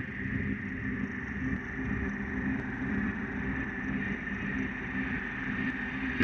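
Ambient electronic background music: a steady, droning wash with no beat.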